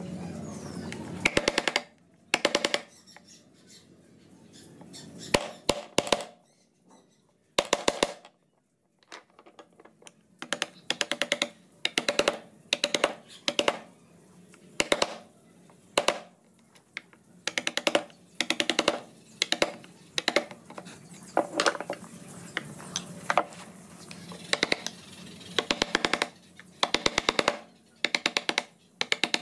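Mallet tapping a carving chisel into wood, in quick bursts of several light taps each. After a short pause early on, the bursts come about once a second.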